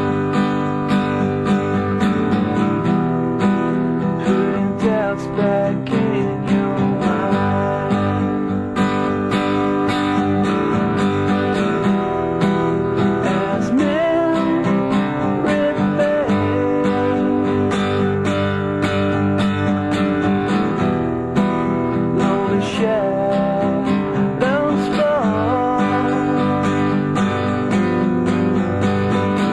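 Music: a song played on strummed acoustic guitar, steady throughout.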